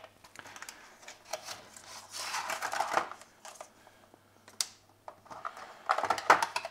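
Clear plastic packaging tray crinkling and clicking as it is handled. There are scattered sharp clicks and a longer crackle about two to three seconds in.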